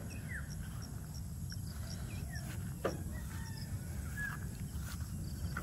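Rural outdoor ambience: scattered short bird chirps and a faint run of evenly spaced high peeps over a steady low rumble, with one brief tap about halfway through.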